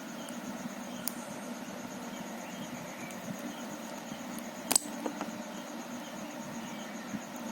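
Plastic Rubik's cube pieces being handled, giving a few sharp clicks, the loudest about halfway through. Behind them runs a steady hiss with a fast-pulsing high tone.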